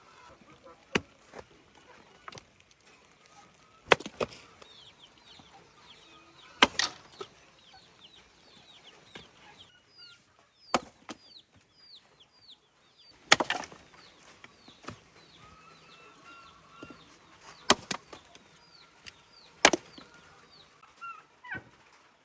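About seven sharp chopping strikes at irregular intervals, a few seconds apart. Behind them, birds chirp in quick, high, downward-sliding notes.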